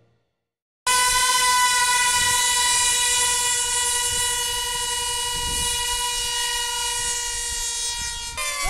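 Several F3D pylon-racer engines, small two-stroke glow motors with tuned pipes, at full throttle while the planes are held on the start line. They make one loud, steady, high-pitched scream that starts suddenly about a second in. Near the end the pitch jumps and starts to waver as the racers are released into flight.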